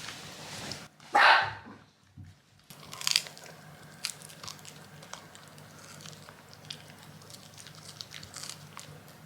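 A Shiba Inu chewing and crunching: scattered sharp clicks and crunches. A short, loud, noisy burst comes about a second in.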